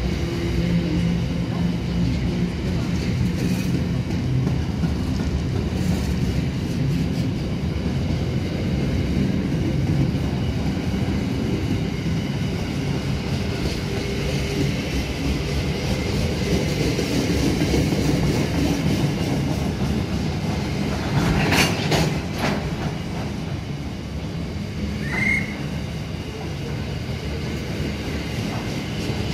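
Freight train of empty container flat wagons rolling past steadily: a continuous rumble of steel wheels on rail. A few sharp clanks come about three quarters of the way through, and a brief high squeak follows soon after.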